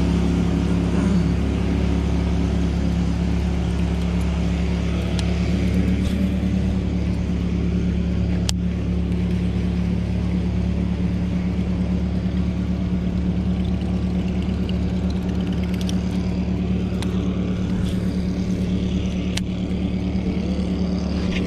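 Boat outboard motor running steadily with the boat underway, a constant engine hum over rushing water and wind noise.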